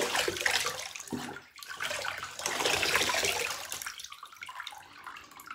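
Bathwater splashing and sloshing in a shallow bathtub around a Labrador retriever puppy being bathed, in two stretches, the second the longer, dying away near the end.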